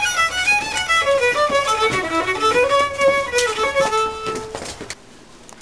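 Violin played solo: a short fiddle tune of quick notes, ending on a held note that stops about four and a half seconds in.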